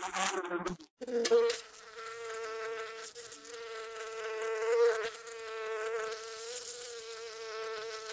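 Bees buzzing in flight: a steady, slightly wavering hum that starts about a second in after a brief silence.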